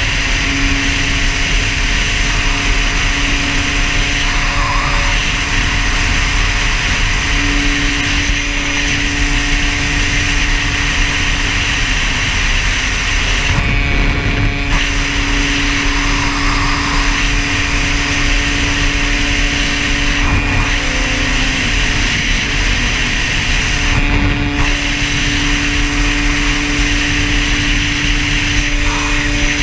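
Dirt bike engine running at steady road speed, heard from on the bike, with wind rushing across the microphone. The engine note holds steady, stepping slightly up or down in pitch a few times.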